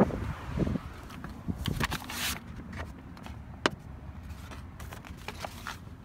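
Handling noise on a handheld phone microphone: quiet rustling and scattered clicks over a faint low wind rumble, with one sharp click about three and a half seconds in.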